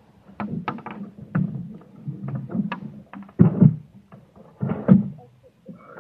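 Kayak paddle handling at the water's edge: a quick run of sharp knocks, then two louder splashes about three and a half and five seconds in.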